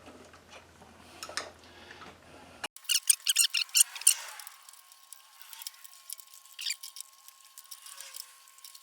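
Small metallic clicks and scrapes of hand tools working a carburetor mounting bolt loose on a small engine. A quick, dense run of clicks about three seconds in lasts about a second and a half, followed by scattered faint ticks.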